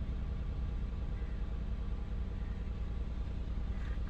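2015 Hyundai Genesis 3.8-litre V6 engine idling steadily.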